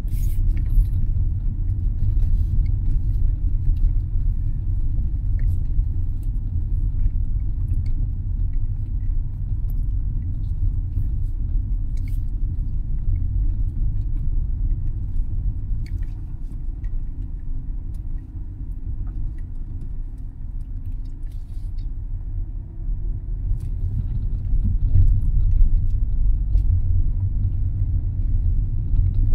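Low, steady rumble of a moving vehicle, easing off around the middle and building again near the end, with faint scattered ticks.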